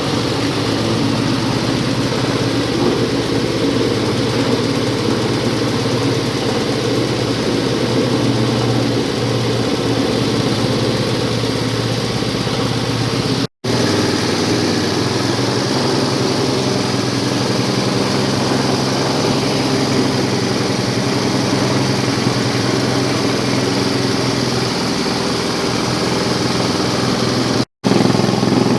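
Cassava grating and pressing machine running steadily under its drive motor, a loud, even mechanical hum. It cuts out for a split second twice.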